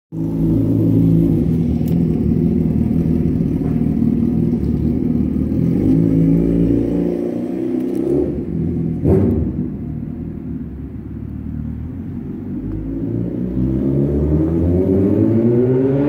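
Vehicle engine running and revving: a low, steady note, a sharp click with a falling pitch about nine seconds in, then the pitch climbs steadily as it revs up toward the end.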